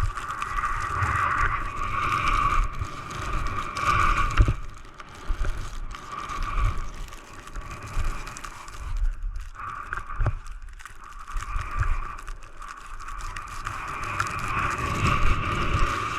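Skis scraping and hissing through heavy, wet new snow, swelling and fading with each turn, with wind buffeting the GoPro's microphone.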